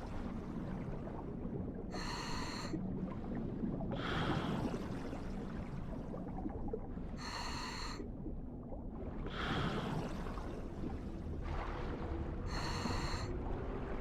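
Rhythmic breathing-like sound in an underwater recording: a high, hissing intake about every five seconds, each followed a couple of seconds later by a softer exhale-like rush, over a steady low rumble.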